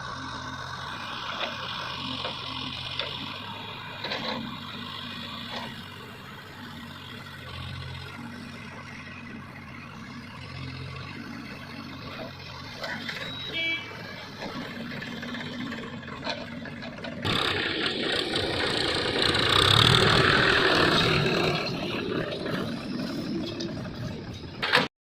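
Diesel machinery running during mud loading. About 17 seconds in, the sound turns suddenly louder and rougher, peaking a few seconds later.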